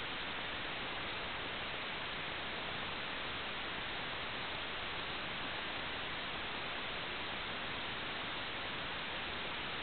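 Steady, even static hiss with no tones or separate events in it.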